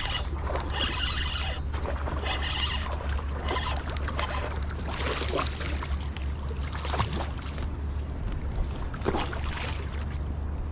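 Water splashing and sloshing as a hooked largemouth bass is fought and reeled in on a spinning rod, with a steady low rumble underneath.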